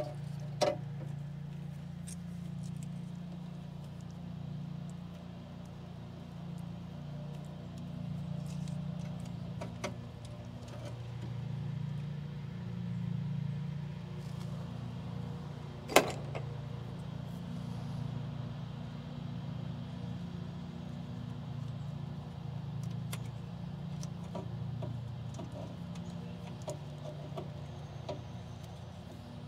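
Wires and connectors being handled inside a pool heater's sheet-metal cabinet: scattered light clicks and rustles, with a sharp click just after the start and another about sixteen seconds in, over a steady low hum.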